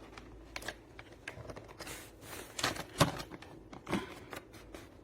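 Hand tools and parts of a tool kit being handled: a run of light clicks and taps, the loudest about three seconds in.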